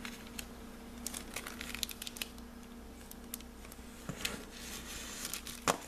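Clear plastic bags of gold foil paper doilies crinkling and rustling as they are handled and slid across a table, with a sharper tap near the end.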